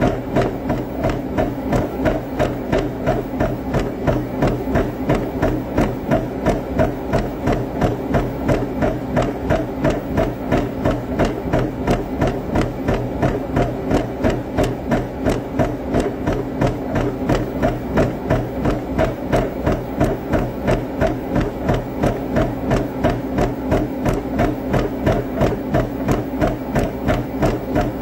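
Fists working a speed bag: a fast, even train of knocks, about three a second, with no break.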